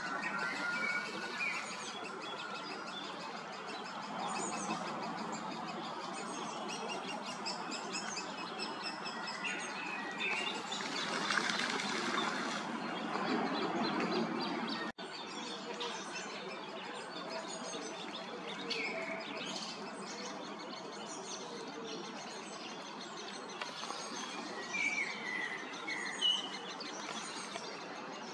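Several small birds chirping and singing over a steady background noise, which swells louder for a few seconds around the middle and cuts out for an instant halfway through.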